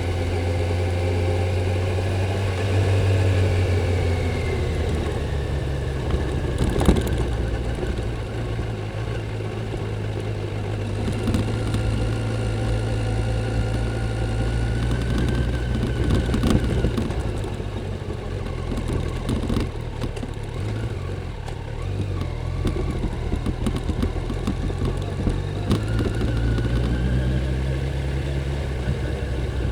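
Kawasaki Z900's inline-four engine through its stock exhaust, running steadily on the move, its pitch rising and falling gently with the throttle. There is a short sharp knock about seven seconds in.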